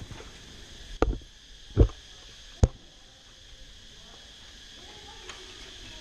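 Three sharp knocks close to the camera, evenly spaced a little under a second apart, over a steady faint high chirring like insects.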